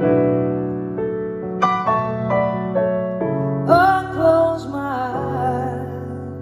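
Live piano playing slow, sustained ballad chords. About two-thirds of the way in, a woman's voice comes in singing over it.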